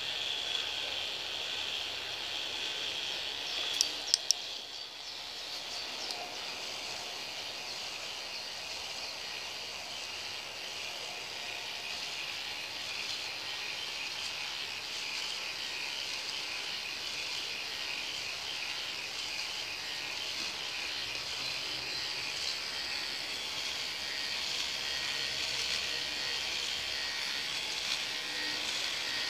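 K'NEX ball machine running: a steady, fast, high-pitched rattle of its plastic gears and drive, with a few sharp clicks about four seconds in.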